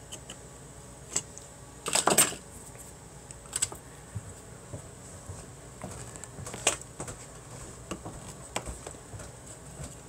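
Scattered clicks and scrapes of a screwdriver and side cutters prying at the plastic hub of a PC power-supply cooling fan, the loudest a short scraping burst about two seconds in.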